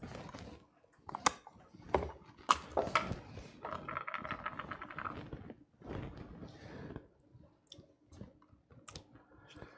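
Plastic ricotta tub being opened and handled, then a metal spoon scraping and tapping as ricotta is scooped into a glass bowl: scattered clicks and knocks, with a run of quick ticks around the middle.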